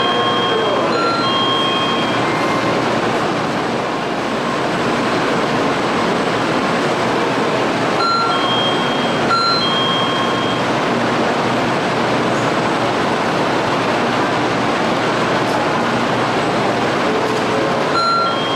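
Steady, loud rushing noise of a Shinkansen train standing at the platform. A short electronic chime of a few high notes repeats about every ten seconds.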